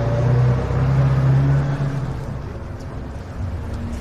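A vehicle engine running, with a low steady hum that grows louder over the first two seconds and then eases off.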